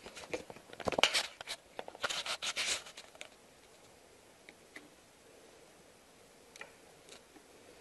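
Rustling, scraping and clicking as a pulse transducer's cable and plug are handled and pushed into an input socket on a lab data-acquisition unit. The noise is busiest in the first three seconds, then goes quiet with a few faint clicks.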